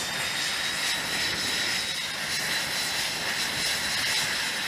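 Jet engine running on a carrier flight deck, with an aircraft hooked to the catapult before launch: a steady rushing noise with a thin high whine over it.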